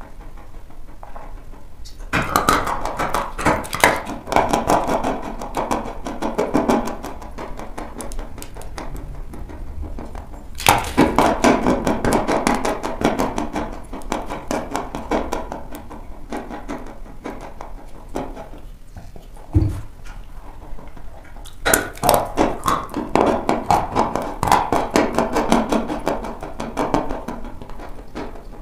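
Dry chalk lumps crunching in the mouth close to a clip-on microphone: a sharp bite about two, eleven and twenty-two seconds in, each followed by a run of rapid gritty crunching as the chalk is chewed.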